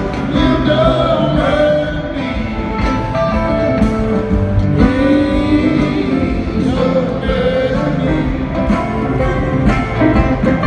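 Live rock band heard from the audience in an arena: a sung vocal line over guitars and drums, with the wash of a large hall.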